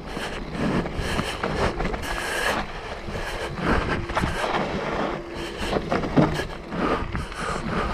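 Mountain bike descending a steep, rough dirt trail: tyres rolling over the ground with irregular knocks and rattles as the bike hits bumps, and wind on the microphone.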